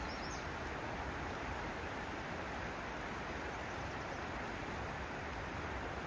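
Steady outdoor background noise, with a few faint, high bird chirps right at the start.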